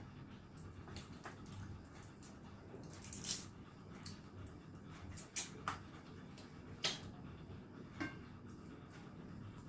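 Close-up eating sounds: quiet wet mouth noises with a handful of sharp clicks and small cracks, the loudest a little past halfway, from eating crab cooked in coconut milk.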